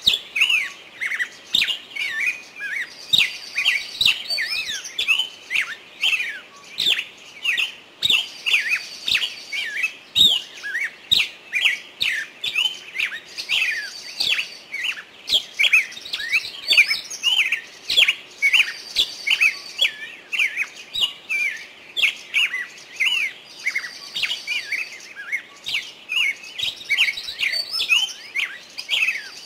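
Small birds chirping busily, several quick chirps a second, with a short high trill that comes back about every five seconds.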